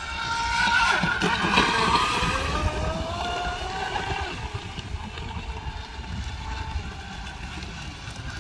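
Twin Leopard 2650 kV brushless motors of a 33-inch Cal Craft RC speedboat whining at speed, with spray hissing off the hull. The whine rises in pitch with the throttle, is loudest a second or two in, rises again near three seconds, then fades.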